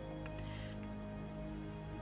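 Soft background music with steady held notes.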